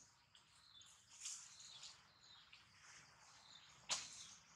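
Quiet outdoor woodland ambience: faint high-pitched chirping and hiss, with one sharp click about four seconds in.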